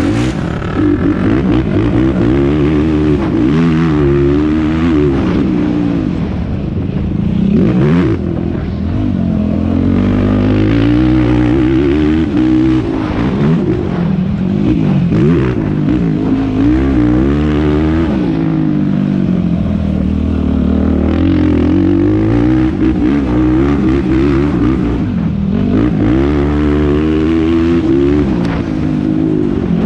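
Yamaha YFZ450R quad's single-cylinder four-stroke engine being ridden hard, its pitch climbing and dropping every few seconds as the throttle is opened and closed.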